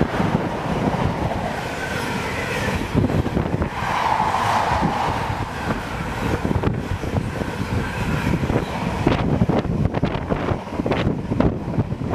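Container freight train passing through a station at speed: a steady rumble of wagons with the clatter of wheels over the rails. The sharp clatters come thicker in the last few seconds.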